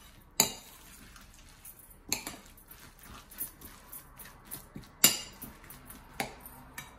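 Metal spoon stirring a rice mixture in a bowl, scraping softly and clinking against the bowl's side in a few sharp knocks, the loudest about five seconds in.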